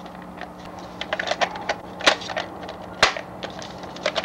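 Hard plastic clicking and clattering as a Trisonic manual VHS rewinder is pressed and clipped onto a VHS cassette, with two sharper snaps about two and three seconds in.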